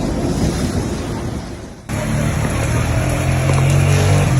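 An even rushing noise, then an abrupt cut about two seconds in to a vehicle engine running with a steady low drone.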